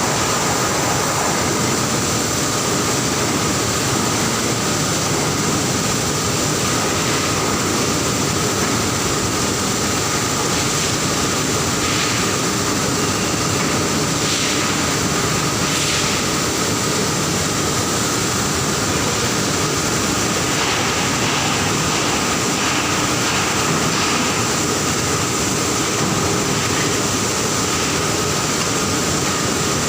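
Steady, loud industrial machinery noise on a furnace floor: a constant mechanical drone with a steady high whine running through it, and a few faint knocks partway through.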